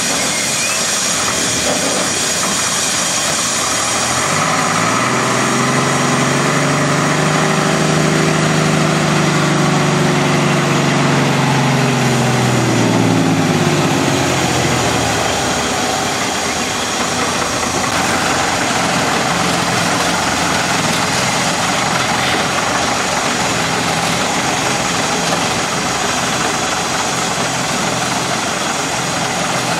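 Vintage Austrian post bus's engine running as the bus moves off and drives slowly by; its pitch rises and then falls again between about four and fifteen seconds in, and it then runs on steadily.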